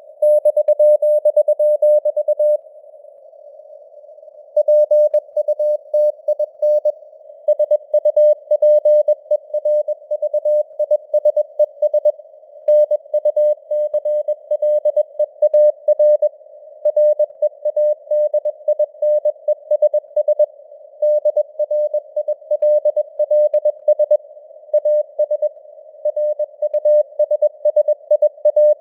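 Morse code (CW) sent at 21 words per minute as a single mid-pitched beeping tone, keyed in rapid dots and dashes over a narrow band of simulated radio hiss. The keying stops for nearly two seconds about three seconds in, leaving only the hiss.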